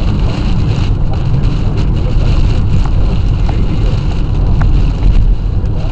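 Car driving on a wet road in rain and wind, heard from inside the cabin: a steady low rumble of engine and tyres with a hiss of rain and wind.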